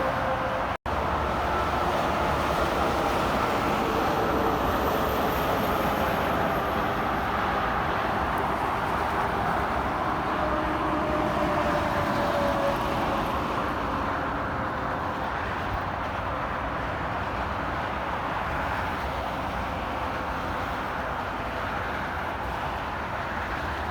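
Steady roar of interstate highway traffic: tyres and engines of passing trucks and cars, with a few tones sliding slowly down in pitch as vehicles go by. The sound drops out for an instant about a second in.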